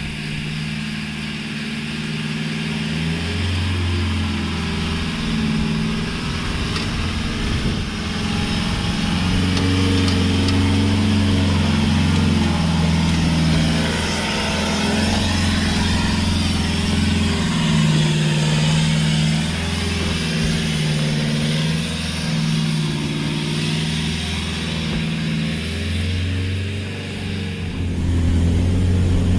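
Land Rover Defender 90's engine pulling hard up a steep, loose dirt track, its pitch shifting up and down as the throttle changes, with a steady hiss of tyres and gravel over it.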